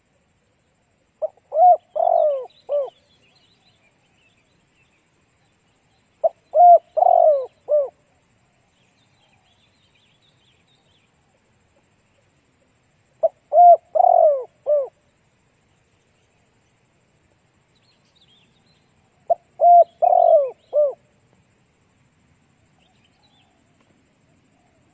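Spotted dove cooing: four phrases a few seconds apart, each a short opening note followed by a run of three or four low coos. Faint small-bird chirps can be heard between the phrases.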